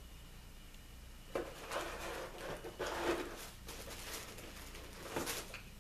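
Tissue paper rustling and crinkling in several short bursts as a hand rummages inside a cardboard box, starting about a second and a half in.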